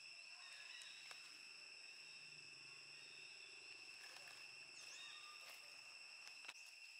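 Faint, steady high-pitched drone of insects, with a few faint clicks and small chirps scattered through it.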